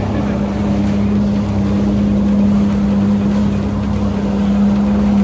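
Boat engine running at a steady pitch over a constant rush of wind and water noise.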